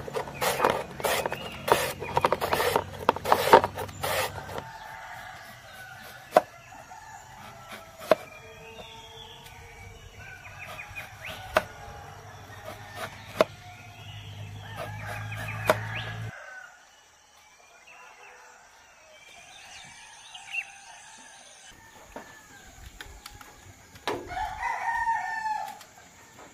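Raw bamboo shoot being sliced on a plastic mandoline slicer, about two scraping strokes a second for the first few seconds, then a large knife cutting through bamboo shoot onto a plastic cutting board with single sharp knocks every second or two. Roosters crow and birds chirp in the background.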